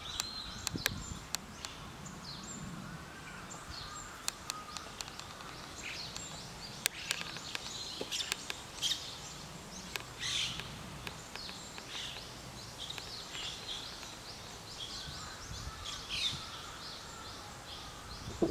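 Small wild birds chirping and calling, many short calls scattered throughout, over a steady outdoor background. Sharp clicks and creaks from the camera body as it is turned in the hand, mostly in the first second and again around the middle.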